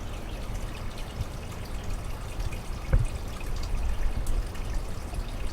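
Steady trickling, pouring water with a low rumble underneath, and one sharp knock about three seconds in.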